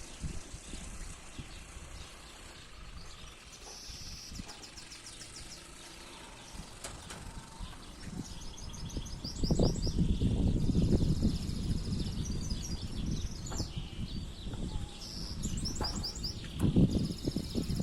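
Male canary singing its breeding-season song: fast, evenly pulsed high trills, one phrase after another. About halfway through, a louder low rumbling noise comes in underneath.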